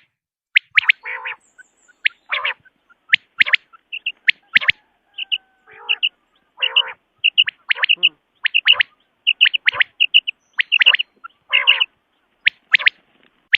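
Common quail calling: short, high, sharp notes, often in pairs or quick runs at an irregular pace, with a few lower, rougher calls mixed in.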